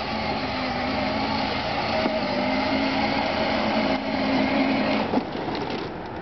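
Electric motor and gearbox of a Power Wheels ride-on ATV whining steadily as it drives across grass, cutting off about five seconds in as the toy stops.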